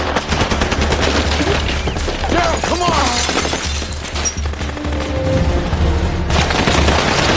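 Film soundtrack of a firefight: rapid automatic gunfire crackling continuously over a dramatic music score with a heavy low rumble.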